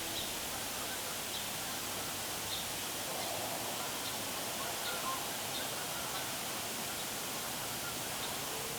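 Steady outdoor hiss of wind in the woods, with faint high chirps recurring about once a second.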